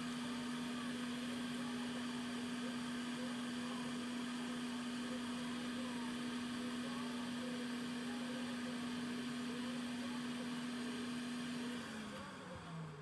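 A small electric motor or blower runs with a steady hum. Near the end it is switched off, and its pitch falls as it winds down.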